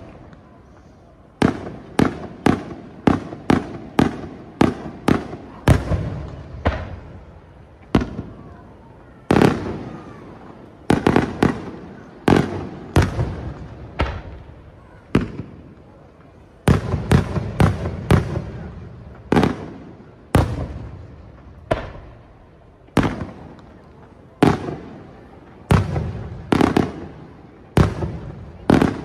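Aerial firework shells bursting in quick, irregular succession: sharp bangs, often one to three a second, each trailing off in an echo, with a few short lulls between volleys.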